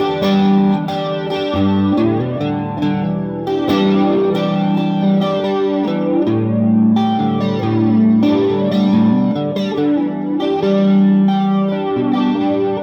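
Electric guitar, a Japanese Fender Telecaster with a Bigsby tremolo, played through a Vox AC15 valve amp and an effects pedal: chords picked and held, changing every second or two.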